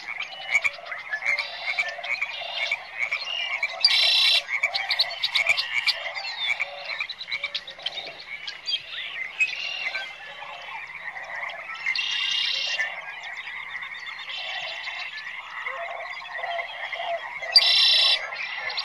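A chorus of frogs calling, many overlapping calls at once, with louder buzzy calls about four seconds in, around twelve seconds in and near the end.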